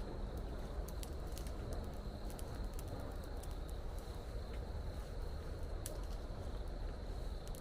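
Steady rain with scattered drips, under a continuous high-pitched insect trill.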